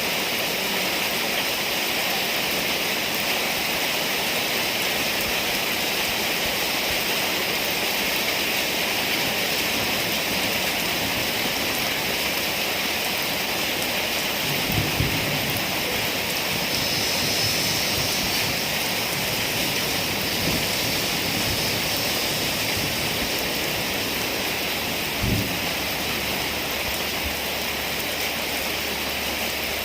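Heavy rain falling steadily in a rainstorm, with two brief low thumps about halfway through and again near the end.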